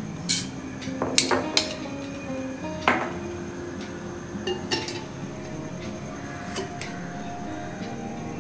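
Stainless steel kitchenware clinking: a steel spoon, tumbler and coffee filter knocking together on the counter, with several sharp clinks in the first three seconds and a few lighter taps later. Faint background music underneath.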